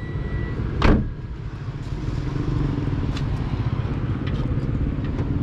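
A 2009 Toyota Yaris's four-cylinder VVT-i petrol engine idling steadily, with one sharp clunk about a second in and a few faint clicks later.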